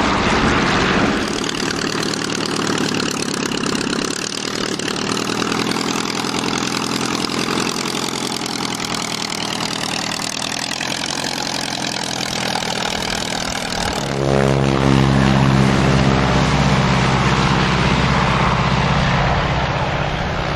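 Propeller aircraft piston engine running, its pitch slowly falling. About fourteen seconds in it gives way to a louder, deeper engine note that runs steadily, like an engine idling close by.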